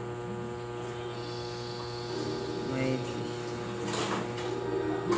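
Steady electrical hum with faint voices in the background, and a brief sharp sound about four seconds in.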